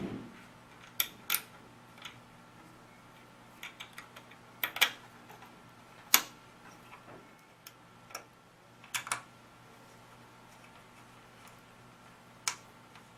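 Sharp, irregular clicks and taps as small hex screws and a hex key are worked into the paintball marker's body shroud, about a dozen over the stretch, with a faint steady hum underneath.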